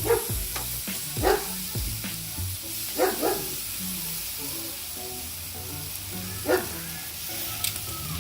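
Chicken breasts sizzling on a hot charcoal grill, a steady hiss, with several short sharp sounds rising above it, a pair of them about three seconds in.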